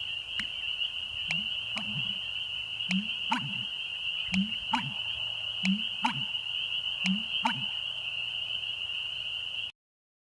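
American bittern giving its low, booming pumping call: five double-noted calls about one and a half seconds apart, each with a sharp click. A steady high whine runs underneath, and the sound stops abruptly shortly before the end.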